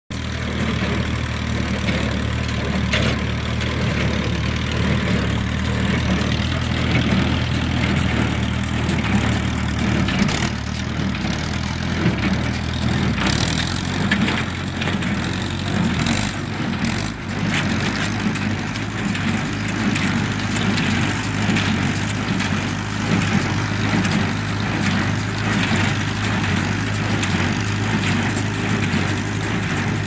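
Tractor engine running steadily while pulling a Massey Ferguson 124 square baler through windrows. A few sharp knocks come from the baler at work.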